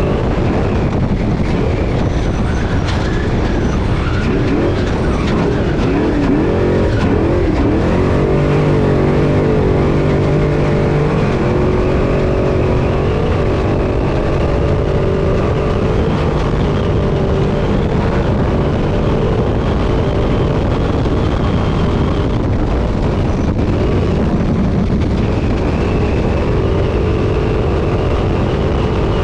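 Off-road desert race truck heard from inside the cab at racing speed: a loud engine note with the revs swinging up and down for a few seconds near the start, then holding steadier, over a constant rush of terrain and wind noise.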